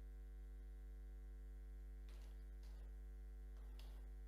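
Near silence in a pause between speech, filled by a steady low electrical mains hum, with a few faint brief noises about halfway through.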